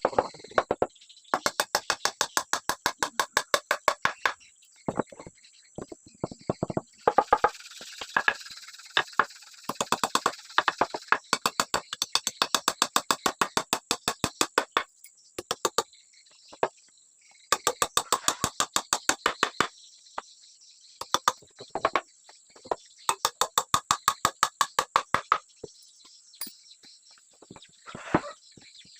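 Hammer striking wood in quick runs of blows, about five or six a second, each run lasting a couple of seconds with short pauses between.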